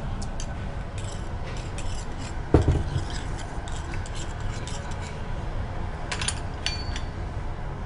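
A metal spoon clinking and tapping against a small steel bowl as cornflour and water are stirred into a slurry, with a louder knock about two and a half seconds in and a short metallic ring near the end, over a steady low hum.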